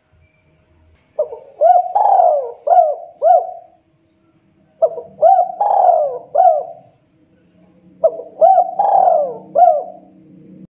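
Spotted dove cooing: three phrases of about five notes each, repeated at a steady pace. This is the lure call used to draw in wild doves.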